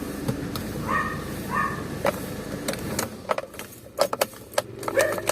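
Ford Everest engine idling with a steady low hum, with two short dog yelps about a second in. Around three seconds in the hum drops away and a run of sharp metallic clicks and rattles follows.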